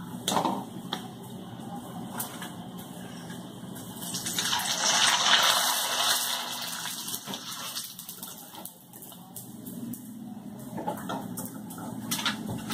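Rice papad deep-frying in hot oil: a loud sizzle swells about four seconds in, peaks a second or two later and dies away. A wire strainer clicks against the pan near the start and again near the end.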